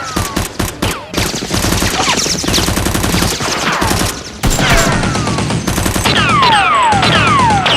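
Bursts of rapid gunfire sound effects dubbed over a Nerf gun battle, shot after shot in quick runs, with a pause of under a second around the middle. Several falling whines come through the shots in the second half.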